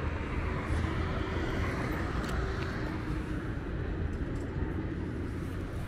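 Steady city street traffic noise: vehicle engines and tyres on the road, with a deep low rumble and a faint steady engine hum in the first half.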